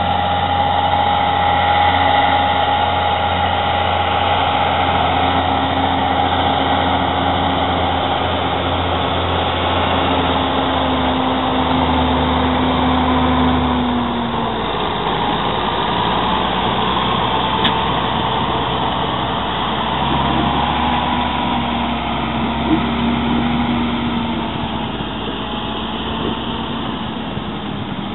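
Farm tractor's diesel engine running steadily under load while hauling hay trailers. Its note shifts about halfway through, as the tractor comes close.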